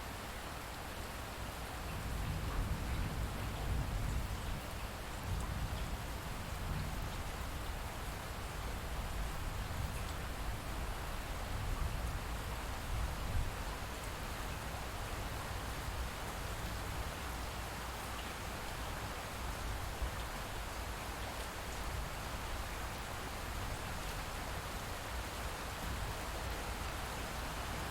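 Steady light rain falling, with a low rumble of distant thunder swelling about two seconds in.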